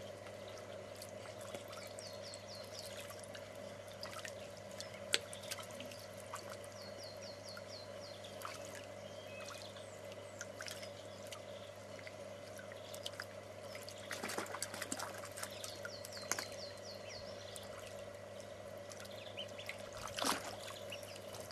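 Ducklings splashing and paddling in a shallow tray of water, giving scattered small splashes and drips, busier in the second half with one louder splash near the end.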